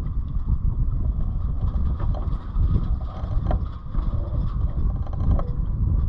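Wind buffeting the microphone aboard a sailboat under sail: a low rumble that rises and falls.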